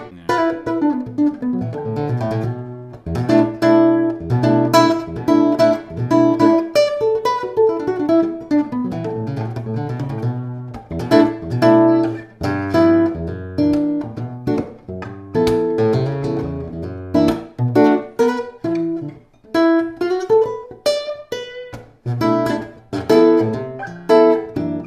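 Ramirez 2CWE nylon-string guitar being played continuously, a mix of strummed chords with sharp attacks and plucked notes, with its battery-compartment sound port on the upper bout open.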